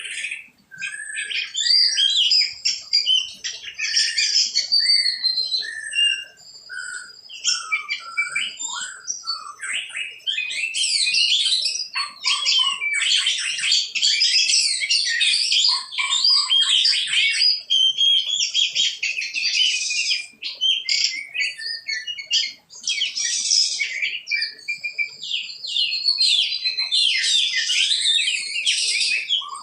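Several songbirds chirping and trilling, calls overlapping, scattered at first and becoming a dense chorus from about ten seconds in.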